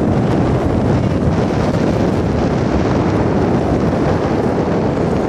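Wind buffeting the phone's microphone, a steady, loud rumble.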